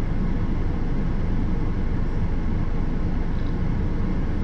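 Steady low rumble inside a parked car with its engine running.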